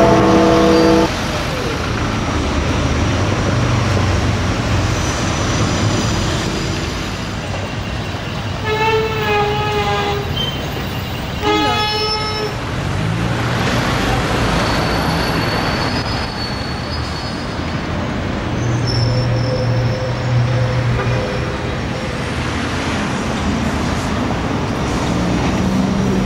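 Busy city street traffic: double-decker buses and black cabs passing with a steady rumble of engines and tyres. A vehicle horn toots twice, each about a second long and a couple of seconds apart, about a third of the way in.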